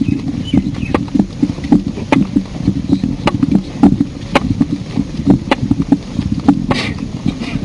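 Footsteps of a group of people walking: irregular knocks several times a second over a steady low rumble.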